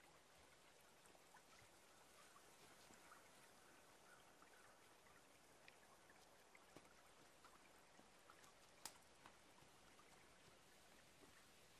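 Faint woodland ambience: a steady soft hiss of trickling stream water, with scattered small ticks and one sharper click about nine seconds in.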